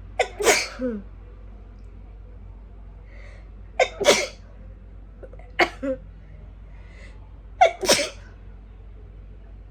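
A woman sneezing four times, a few seconds apart. Each sneeze is a sharp burst with a short voiced tail, and the sneezes are strong. They are set off by sneezing powder sniffed into both nostrils while she has a cold.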